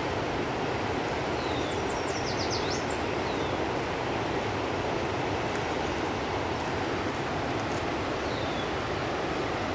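Steady rush of fast-flowing river water. A few short, high, falling bird calls cut through it, with a quick run of high chirps about two to three seconds in.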